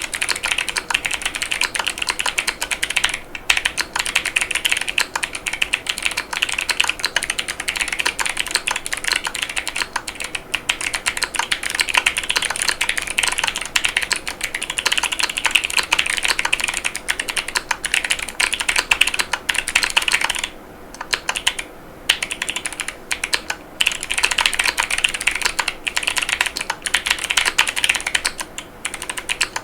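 Fast typing on a Keychron Q6 Max mechanical keyboard with clicky Kailh Box Jade switches and PBT Cherry-profile keycaps: a dense, unbroken stream of sharp key clicks, with a couple of brief pauses about two-thirds of the way through and again near the end.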